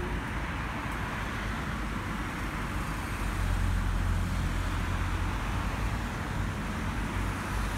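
Steady background road traffic noise, with a low rumble that swells about three seconds in.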